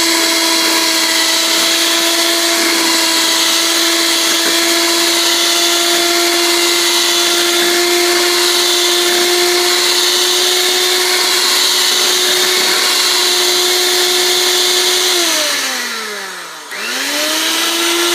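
Electric hand mixer running at a steady high whine, its beaters churning batter in a stainless steel bowl. About fifteen seconds in the motor winds down in pitch, then speeds back up near the end.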